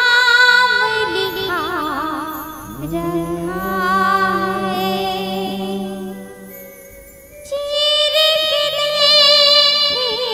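A woman singing a Chhattisgarhi devotional bhajan in long, wavering, ornamented phrases, over a steady low held note. A new, louder phrase begins about seven and a half seconds in.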